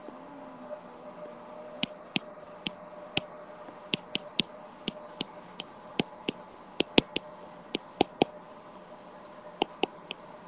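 Irregular sharp clicks of a stylus tapping on a tablet's glass screen during handwriting, with a faint steady hum underneath.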